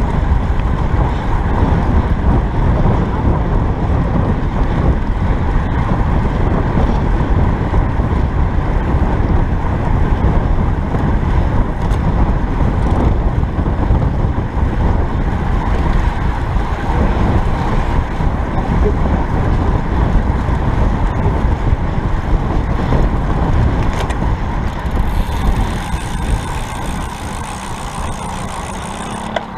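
Wind rumbling on the microphone of a camera riding on a road bike at speed, steady, easing a little near the end.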